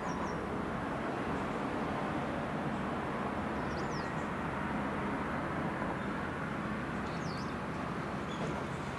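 Steady outdoor background rumble, with three short high bird chirps a few seconds apart.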